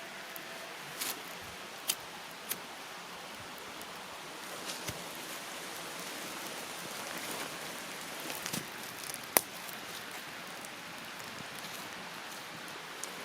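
Small wood campfire crackling: a steady hiss with a handful of sharp pops, the loudest about nine seconds in.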